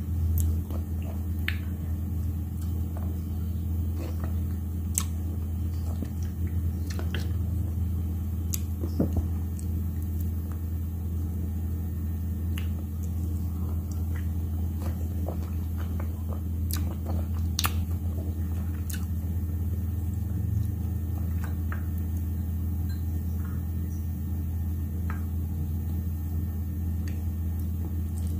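A steady low hum runs throughout, with scattered faint clicks and taps.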